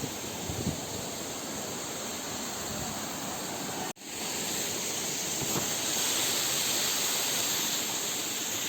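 Steady rushing of a waterfall. It cuts out for an instant about four seconds in, then comes back louder and brighter.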